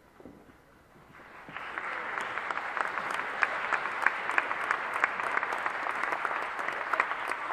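Congregation applauding: the clapping begins about a second in, swells quickly and then holds steady.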